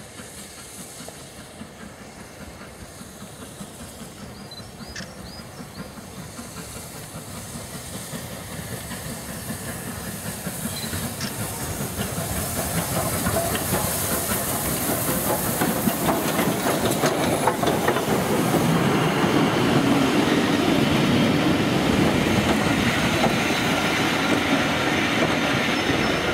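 Stanier 8F 2-8-0 steam locomotive 48151 hauling coaches, approaching and passing close by. It grows steadily louder over about fifteen seconds, then stays loud with a hiss and a run of sharp clicks from the wheels over the rail joints.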